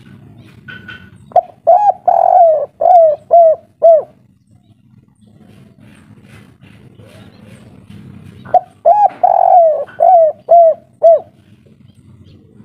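Spotted dove (tekukur) cooing the 'kuk 3' song, twice. Each phrase is a couple of quick notes, then a longer rolling coo, then a few short coos that drop in pitch at the end.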